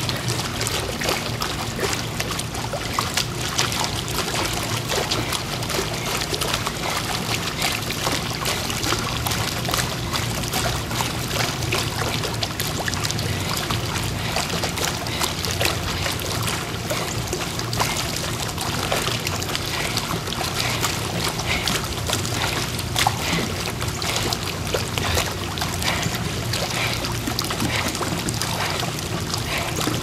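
Pool water churning and splashing steadily as a person runs hard in place in deep water, arms and legs driving through the surface at interval pace.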